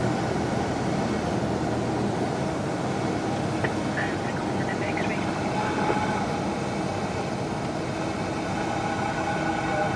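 Cessna 172's piston engine and propeller running steadily, heard as a constant drone inside the cabin.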